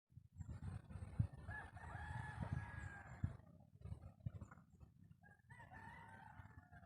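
Rooster crowing twice, each crow a long held call lasting about a second and a half, over a low rumble with a few thumps.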